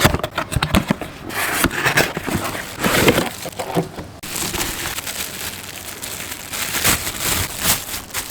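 Cardboard box and its packaging being opened and handled by hand: a run of scrapes, rustles and crinkling, turning into denser, steadier crinkling from about four seconds in.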